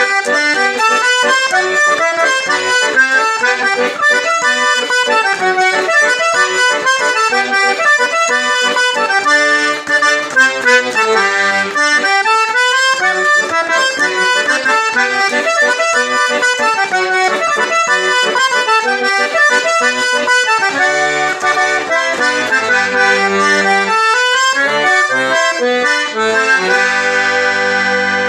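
Accordion playing a gato, an Argentine folk dance tune: a quick, running melody over bass notes, closing on a long held chord near the end.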